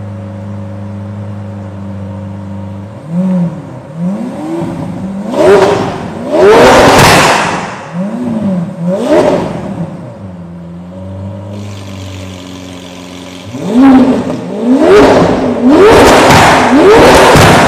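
Lamborghini Aventador LP700-4's V12 engine through a valved Fi Exhaust system, idling and then blipped through several sharp revs with the exhaust valves closed, before settling back to idle. Partway through, the valves open and the engine sounds louder and brighter, with a quicker string of revs near the end.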